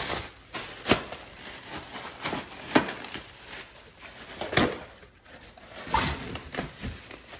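Plastic air-pillow packing being crushed and popped by a Great Dane's teeth and paws: several sharp pops spread through, with crinkling plastic between them.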